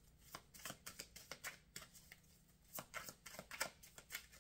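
Tarot cards being shuffled by hand: a run of soft, uneven card snaps and slaps coming in small clusters.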